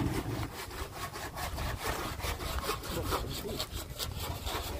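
Hand saw cutting through wood in steady, repeated back-and-forth strokes.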